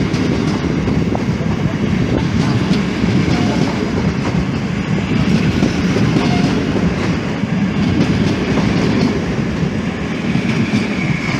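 Passenger train rolling along the track at a station, a loud steady rumble with occasional clicks from the wheels.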